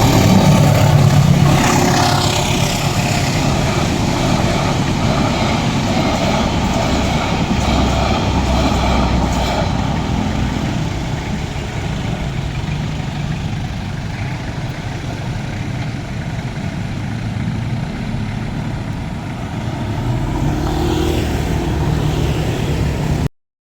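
Road traffic going over a level crossing: motor vehicle engines and tyre noise in a steady mix that eases a little in the middle, swells again near the end, then cuts off abruptly.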